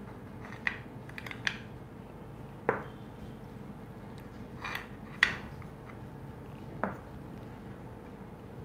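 Small metal cups clinking against a metal pan and being set down on a countertop as they are lifted out with an oven mitt: several short, sharp clinks spread out, the loudest about five seconds in, over a faint steady hum.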